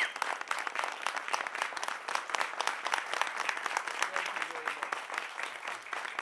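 A group of people applauding: many hands clapping steadily and unevenly.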